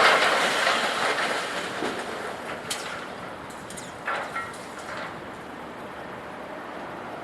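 Loud crash of scrap metal being handled by a loader, with a rattling clatter that trails off over a second or two, then lighter metallic clanks about three and four seconds in.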